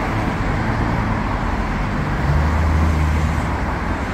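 Street traffic noise with the low hum of a motor vehicle's engine, the hum growing louder a little past the middle and then easing.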